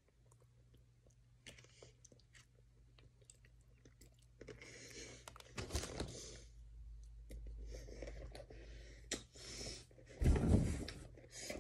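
A person chewing a mouthful of hamburger with a soft crunch. The paper wrapper rustles about five seconds in as the burger is put down on it, and a louder low thump comes near the end.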